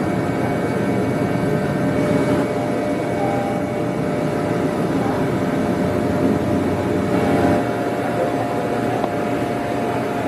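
Steady mechanical engine drone with a constant faint whine over it, running without change.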